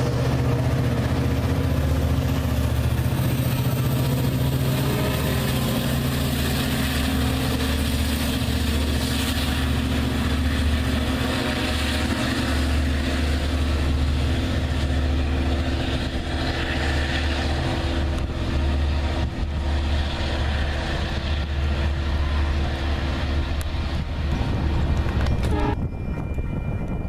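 LIRR EMD DE30AC diesel locomotive and its bilevel coaches passing. The diesel engine gives a steady low drone over the rumble of the cars on the rails. The sound drops away suddenly near the end.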